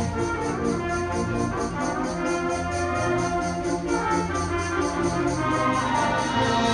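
Symphonic band (wind band) playing, with the brass prominent in held chords that change every second or so over sustained low notes.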